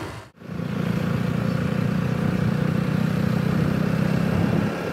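Motorcycle engine running steadily while being ridden, with an even rush of road noise. A brief dropout about a third of a second in breaks the sound.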